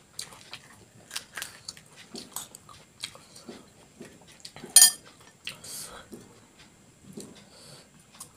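Metal spoon clinking and scraping against a glass bowl while filling is scooped into puris: a run of light taps, with one sharp, louder clink a little before five seconds in.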